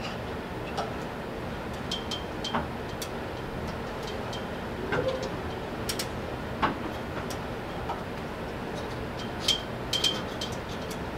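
Irregular metallic clicks and clinks of metal parts and fasteners being fitted by hand onto an X-ray unit's column frame, over a steady low background hum. A few sharper, ringing clinks come near the end.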